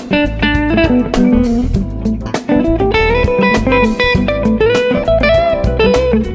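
Electric guitar improvising pentatonic lead lines with string bends over a jam track of drums and bass.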